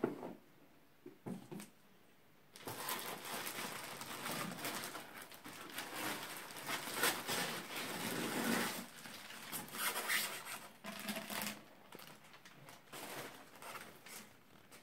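A few light knocks, then plastic wrapping crinkling and rustling for several seconds as it is pulled off a protein skimmer's acrylic body, breaking into shorter rustles near the end.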